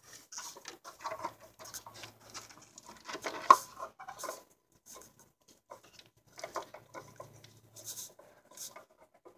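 Handling noises from fitting the new oil filter back into its housing: irregular rustles, scrapes and small clicks, with one sharper click about three and a half seconds in.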